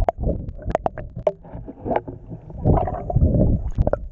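Muffled water sloshing and rumbling around a submerged camera, in uneven surges, with many sharp clicks and knocks.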